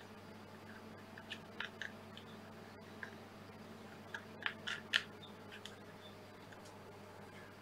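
Small plastic clicks and taps as a 9-volt battery is pressed into the Rode VideoMic's battery compartment, in two short clusters, the loudest about five seconds in; the battery is not sitting flat.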